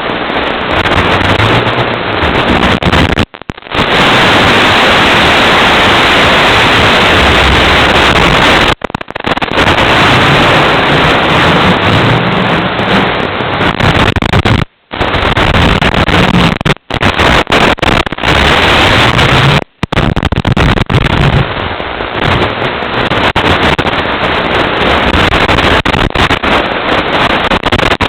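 Loud hiss of static from a Nano QX FPV micro quadcopter's analog video link. A faint low hum shifts in pitch underneath, and the sound cuts out abruptly to silence several times.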